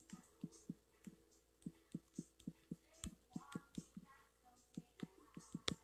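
Faint, irregular soft tapping, about three taps a second, with a faint voice or singing in the background now and then.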